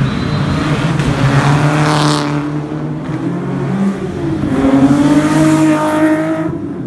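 Rally car engine revving hard as the car accelerates along the stage, its pitch climbing in two surges with a dip between, then cutting off abruptly near the end.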